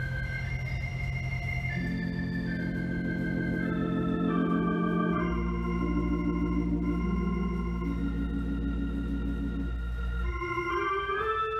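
Organ playing solo: slow, sustained chords with a melody line above, a deep bass note held from about halfway through, then a quick rising run of notes near the end.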